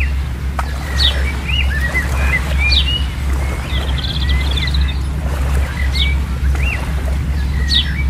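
Small birds chirping repeatedly: short downward-sliding chirps about once a second mixed with arching whistled notes, and a brief trill about four seconds in, over a steady low rumble.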